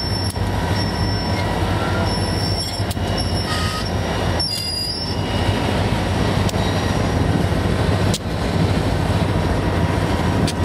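Freight train of covered hopper cars rolling past close by: a loud, steady rumble of steel wheels on the rails, with a few sharp clanks and brief faint high wheel squeals.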